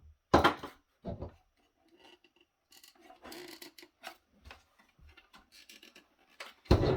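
Plastic parts of a small electronics docking connector being handled and pried at by hand. There is a sharp click or knock, then a second one about a second later, then faint scraping and rubbing, and a louder clatter near the end.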